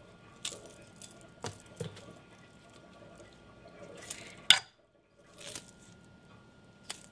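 Light kitchen handling: a few soft taps and rustles as green onion stalks are picked up and laid on a wooden cutting board, with one sharper click past the middle.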